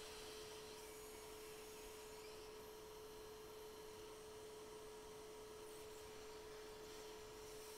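Near silence: a faint steady electrical hum, one constant tone with a fainter higher one above it.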